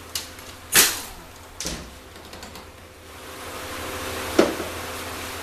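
An air ratchet run in short bursts, loosening the speed-sensor bolts on a 4L80E transmission case, the loudest burst under a second in. Then a steady hiss, with a single sharp knock near the end.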